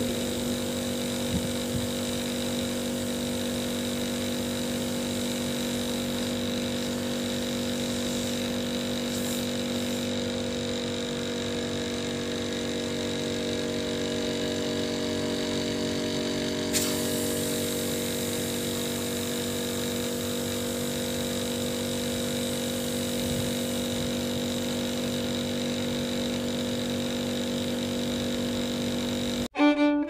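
Repaired hermetic refrigerator compressor running with a steady electric hum, pumping into a manifold gauge: its lost compression restored, it now builds 300 to 400 PSI. Near the end it gives way to string music.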